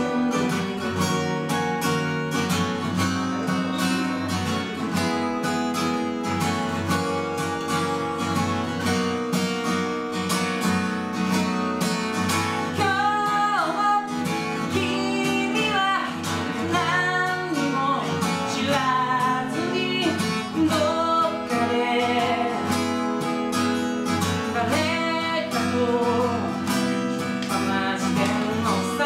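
Acoustic guitar strummed steadily; about halfway through, a man's singing voice comes in over it.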